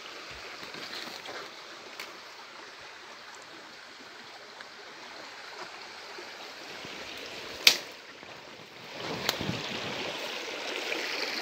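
Small forest stream running steadily. A single sharp click about two-thirds of the way through, with a softer one shortly after.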